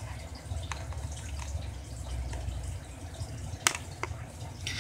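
Scotch Titanium scissors snipping the strings that hold a model plane to its cardboard backing: a few sharp clicks, two close together near the end, over a low handling rumble.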